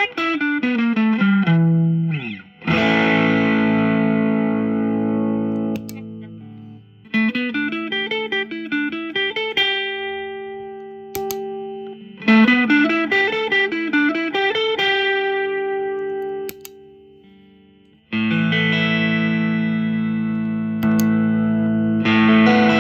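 Stratocaster electric guitar played through a Sumo Stomp overdrive pedal, a Tube Screamer-type overdrive, giving a mildly distorted tone. It starts with a falling run of notes and a swooping slide, then rings out chords, plays two quick back-and-forth licks, and ends on a strummed chord left to sustain.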